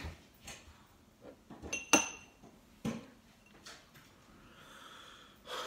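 A shot glass being groped for and handled on a table: a few light knocks and taps, with one sharp glass clink about two seconds in that rings briefly.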